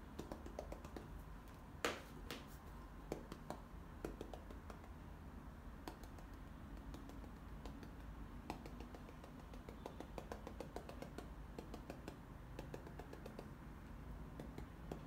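Faint, irregular taps of a paintbrush dabbing acrylic paint onto canvas to build up foliage, with one louder tap about two seconds in.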